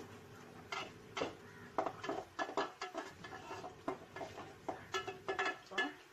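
A spoon stirring thick onion and cashew gravy in a pan, with irregular scrapes and clinks against the metal, some of them squeaky.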